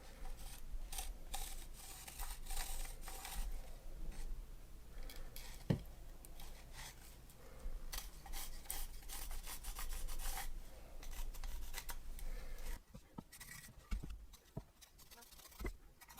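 Pencil scratching in quick, repeated strokes on a wooden board as a handle outline is drawn, with a single knock about six seconds in; the strokes thin out over the last few seconds.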